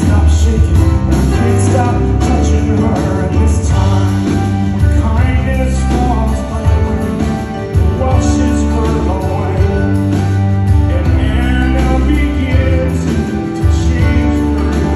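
Live rock band playing through a PA, with electric guitar, drums and bass under a male singer's voice.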